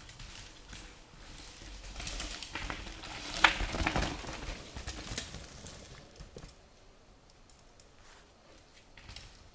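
Mountain bike passing close by on a leaf-covered dirt trail: tyres crunching over leaves and dirt, with the bike rattling and clicking. It is loudest about three and a half seconds in, then fades to faint scattered clicks.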